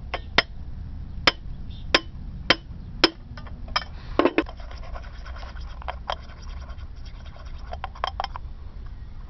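Light hammer taps on the end of a thin steel spoke, driving it through a 1.5 mm hole in the top of an aluminium drink can: five sharp taps in the first three seconds and a few more about four seconds in. After that come quieter scraping and clicks as the spoke is worked in the hole.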